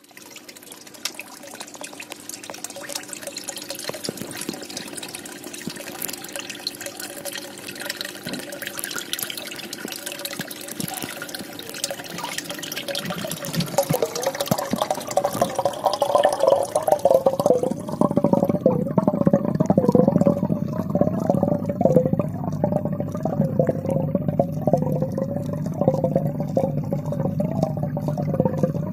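Water pouring from a pipe into a fish tank and splashing at the surface. From about halfway the same flow is heard from under the water: the hiss drops away and it turns muffled, low and louder, with a wavering tone.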